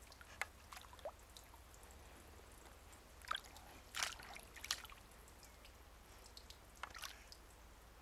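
Old English Sheepdog puppy dabbling at pond water with its muzzle and paws, making a few short, irregular splashes and drips. The loudest cluster comes about four seconds in.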